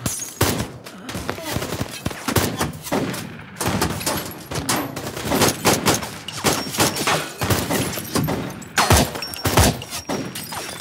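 Gunfire: a sustained exchange of many shots fired in rapid clusters, with brief gaps between the bursts.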